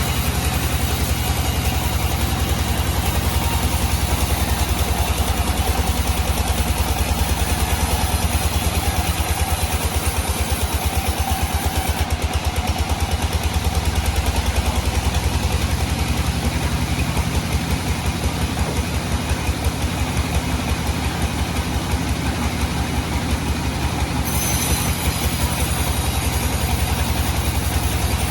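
A sawmill's engine running steadily with a rapid, even thumping pulse.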